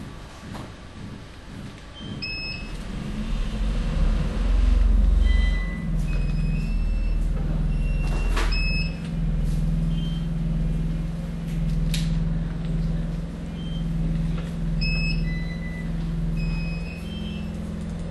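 A steady low hum starts about two seconds in and holds, with a few short high-pitched beeps and clicks over it.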